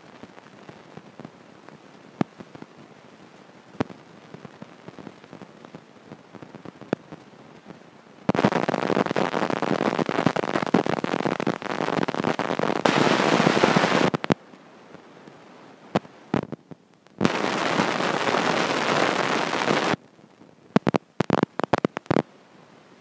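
Crackling noise on the microphone, likely from handling. It comes in two loud stretches of several seconds each, the first about a third of the way in and the second about three quarters of the way in, with scattered clicks before and a quick run of clicks near the end.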